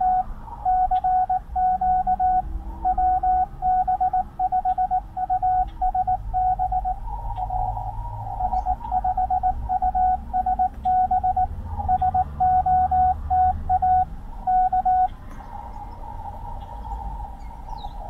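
Morse code (CW) coming from an Icom IC-705 transceiver tuned to 14.062 MHz in the 20-metre CW segment. It is a steady single-pitch tone keyed in a run of dits and dahs. The keying stops about 15 seconds in, leaving the receiver's band hiss.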